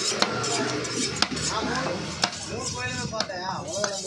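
Large knife chopping trevally fillet into cubes on a wooden chopping block: sharp knocks of the blade on the wood about once a second.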